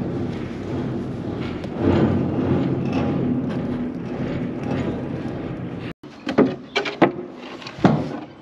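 A steady machine drone echoing inside a concrete silo. After a break about six seconds in, a few sharp metal clanks and knocks as a man climbs the silo's chute and door rungs.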